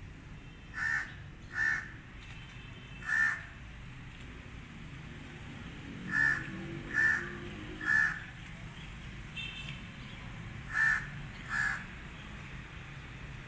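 A bird calling: about eight short, harsh calls in groups of two or three, over a low steady background hum.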